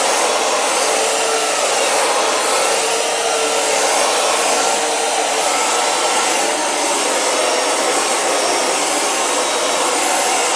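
Upright carpet cleaner running steadily as it is pushed back and forth over carpet, a loud even motor noise with a faint high whine on top.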